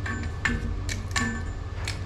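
Metal clinking as stainless steel pipe fittings and tools are handled: about five sharp knocks, some ringing briefly, over a steady low hum.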